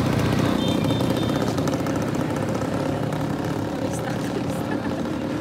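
A motor vehicle's engine running steadily at close range.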